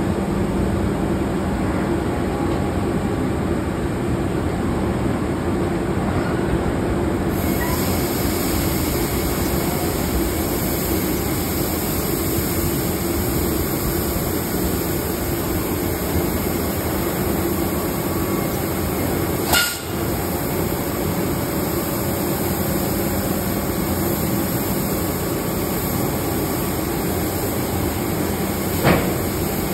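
Rapeseed pouring from a tipping grain trailer onto the grate of an intake pit: a steady hiss that swells about seven seconds in and carries on. Under it is the steady hum of running machinery. Two brief knocks come, one about two-thirds of the way in and one near the end.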